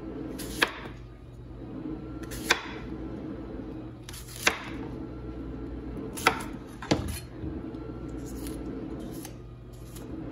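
Chef's knife cutting through red apples and hitting a plastic cutting board: five sharp knocks, roughly every two seconds, the last two close together. A steady low hum runs under them.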